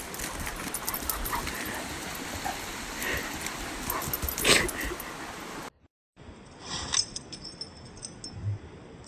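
German shepherd giving short whimpers and yips while running, over rustling and footfalls on a leaf-littered trail. The sound cuts off abruptly about six seconds in and comes back quieter.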